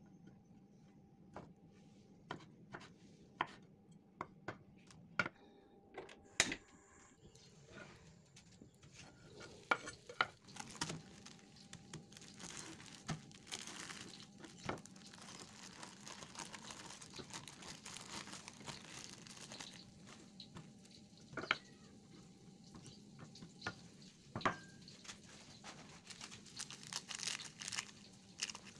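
Kitchen knife cutting through a block of tempeh onto a wooden cutting board, a series of taps every half-second or so for the first several seconds. After that comes a longer stretch of plastic wrapping crinkling and rustling as wrapped tempeh is handled, with occasional clicks.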